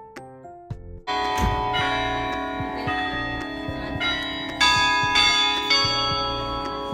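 Soft piano music, then about a second in a campus bell tower's bells start ringing loudly, with several strikes on different pitches that ring on over one another.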